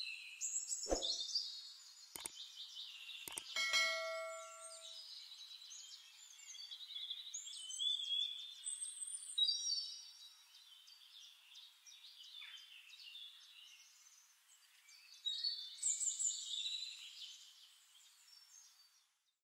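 Birds calling and chirping, with a few sharp clicks in the first few seconds and a brief ringing ding about four seconds in. The calls stop for several seconds and start again near the end.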